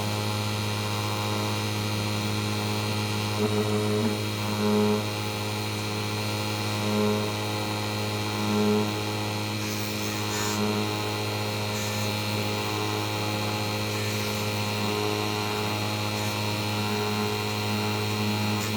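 Small lathe motor running with a steady hum while the pivot of a clock governor arbor is polished, with a few brief swells in tone now and then.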